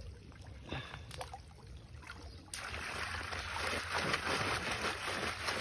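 Pond water sloshing and splashing as someone wades in the shallows and dips a plastic basket into it. The splashing starts about two and a half seconds in and stays steady after that.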